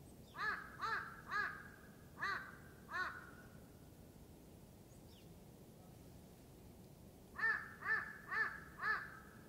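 A crow cawing: five harsh caws in the first three seconds, then a run of four more, about half a second apart, near the end.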